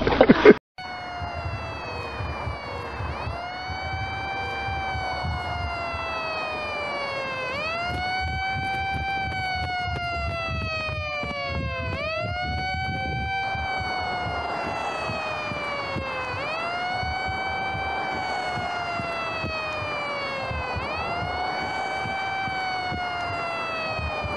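A loud, noisy burst cuts off within the first second. A siren then wails steadily, its pitch rising and then falling slowly, once about every four and a half seconds.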